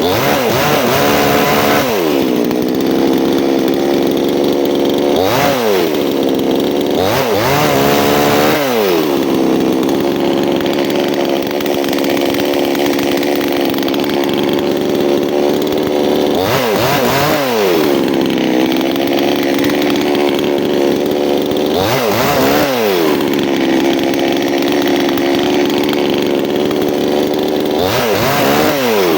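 Chainsaw engine running at high revs while cutting wood, its pitch dropping briefly and climbing back several times.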